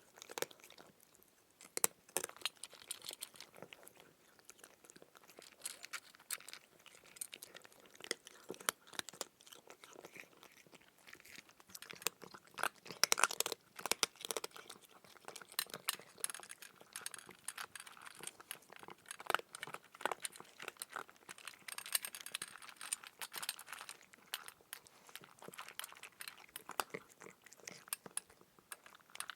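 Close-up crunching and chewing of crisp food, made as a sound effect: a run of irregular crackles and snaps with no steady rhythm.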